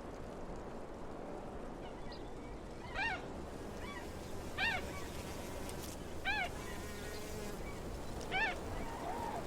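A bird giving four short calls, each rising and then falling in pitch, spaced about a second and a half to two seconds apart over a faint steady background.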